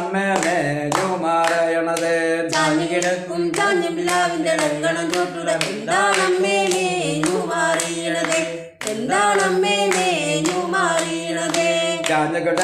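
A woman and a man singing a Malayalam chavittukali folk song without instruments, over a steady clapped beat, with a short break between lines about nine seconds in.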